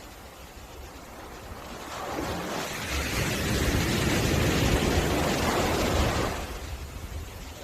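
Sea surf on a beach: a wave swells, breaks and washes in about two seconds in, then dies away near the end, over a steady low rumble of wind on the microphone.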